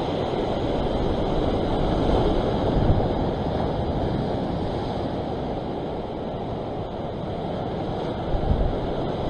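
Sea waves washing against the rock ledge, with wind buffeting the microphone in a few brief low gusts about eight seconds in.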